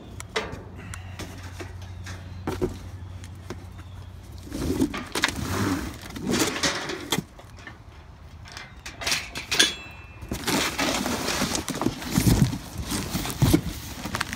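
Steel garden cart parts and their plastic packaging being handled during assembly: plastic rustling, with irregular clicks and knocks of metal parts.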